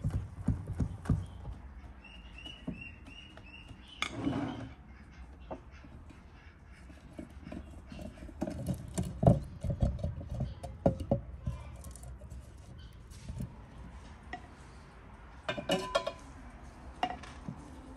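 A wire whisk clicking quickly against a glass mixing bowl for about the first second, then a bird chirping a short run of high notes. Scattered knocks and taps of a metal baking pan being handled on a wooden table follow, and a spoon scrapes briefly in a metal bowl near the end.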